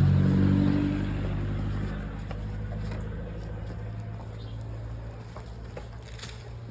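Low, steady engine hum, fading away over the first few seconds, with a few faint clicks near the end.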